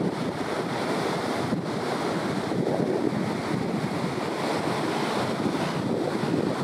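Breaking ocean surf, a steady rushing wash of water, with wind blowing on the microphone.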